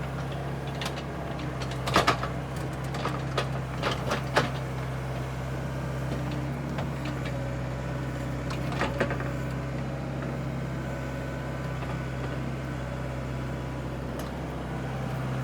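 A 7.5-tonne Komatsu excavator's diesel engine running steadily under digging, with a few sharp clanks and knocks, mostly in the first few seconds and once more about nine seconds in.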